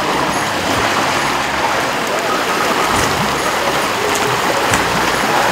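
River water rushing steadily, an even rushing noise with no clear breaks.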